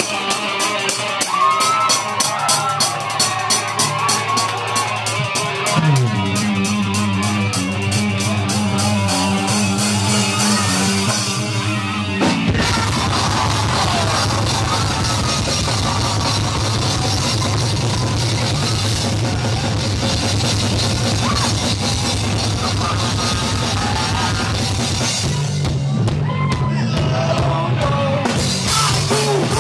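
Live rock band playing: drum kit, bass and electric guitar. A steady, regular beat for the first twelve seconds or so gives way to a denser, heavier section; it thins out briefly near the end before the full band comes back in.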